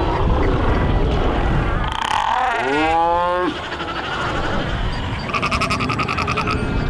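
Northern fur seals calling: one call rising in pitch about two and a half seconds in, then a rapid pulsed call around five seconds in, over steady low background noise.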